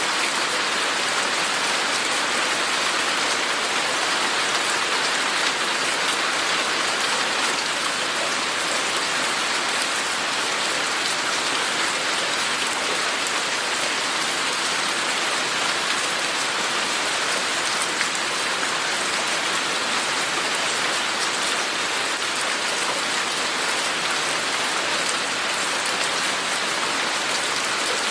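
Steady rain falling, an even hiss of many drops landing on surfaces with no change in strength.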